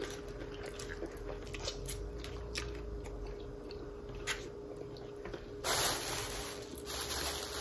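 Faint wet chewing, smacking and sucking of people eating sauced chicken wings, with small scattered clicks. A louder hiss comes in about six seconds in.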